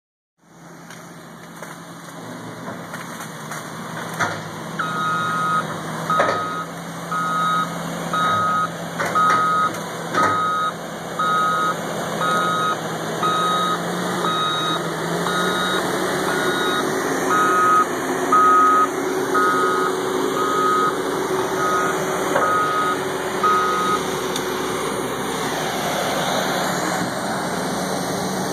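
Front-end loader engine running steadily while its reversing alarm beeps about three times every two seconds. The beeping starts a few seconds in and stops a few seconds before the end. A few knocks come early on, and the engine note rises a little around the middle.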